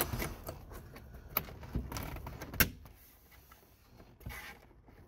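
Plastic sunroof trim pieces on a Lexus LS400 being pressed and snapped into place around the opening: a run of clicks and knocks with some scuffing, the loudest snap about two and a half seconds in.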